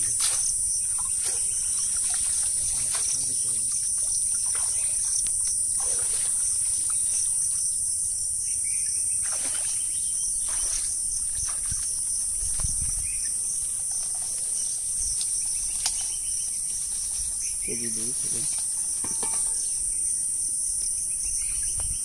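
Steady, high-pitched chirring of insects, with scattered knocks and splashes as a bamboo slat fish trap is lifted out of shallow water and handled.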